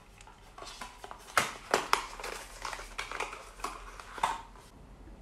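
Small cardboard gift box being handled and opened by hand: papery rustling and scraping with several sharp clicks as the end flap is pulled open, stopping a little before the end.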